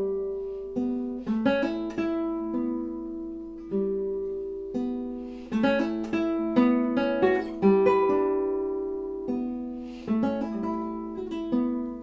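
Solo classical guitar with nylon strings played fingerstyle: single notes and chords are plucked and left to ring and die away, broken by a few short, quick runs of notes.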